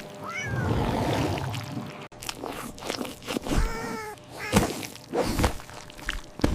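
Crunching, chewing-like sound effects with scraping, broken by a short pitched cry near the start and a longer arching cry about halfway through.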